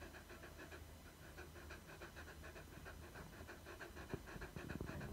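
Samoyed dog panting softly in quick, even breaths, with a few soft knocks about four seconds in.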